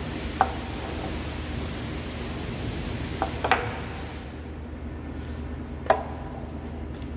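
Short hard knocks of a metal pipe floor flange being set down and shifted on stacked pine 2x10 boards, four in all, the last about six seconds in as a cordless drill is laid on the wood. A steady low background noise runs underneath.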